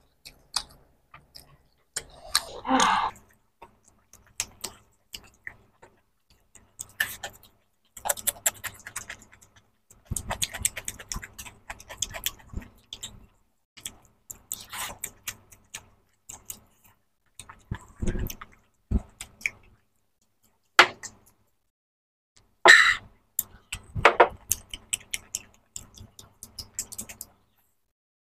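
Two people eating rice and mutton curry by hand: wet chewing and mouth clicks, and fingers mixing rice on the plates, in scattered short bursts. A few louder bursts come about three seconds in and again about two-thirds of the way through.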